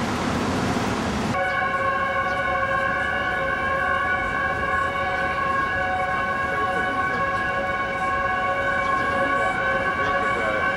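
Street traffic noise, cut off about a second in by a steady sound of several held high pitches that does not waver or glide and runs on to the end.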